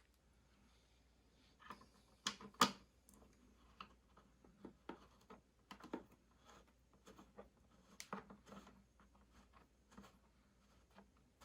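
Irregular small clicks and knocks of hands and an Allen key working on a small wooden portable speaker while its case screws are tightened back in. The loudest knocks come about two and a half seconds in.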